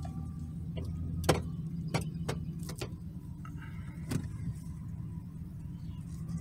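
A 2009 GMC Sierra 2500's 6.0-litre V8 idling steadily, heard from inside the cab, with a few sharp clicks over it.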